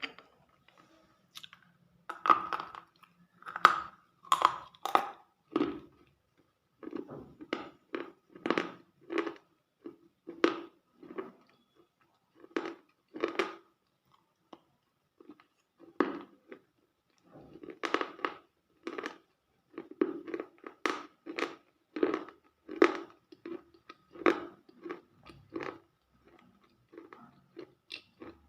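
Close-miked chewing and crunching of something crunchy, bite after bite at an uneven pace with a few short pauses.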